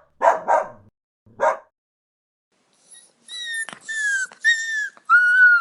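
Puppy crying: a few short yips in the first second and a half, then after a pause four high-pitched whining cries, each about half a second long and sliding slightly down in pitch.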